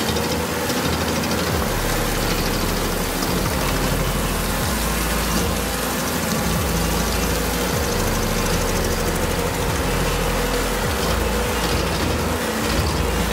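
Stump grinder running, its cutting wheel grinding the last of a tree stump down into wood chips; a steady, loud mechanical noise.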